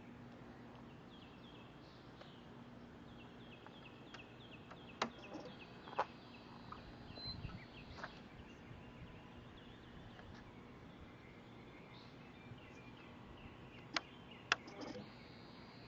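Faint outdoor ambience with birds chirping, broken by a few sharp clicks, two of them close together near the end.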